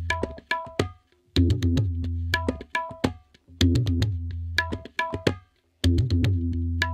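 Background music built on a percussive drum pattern, played in short phrases of about two seconds, each broken off by a brief silence.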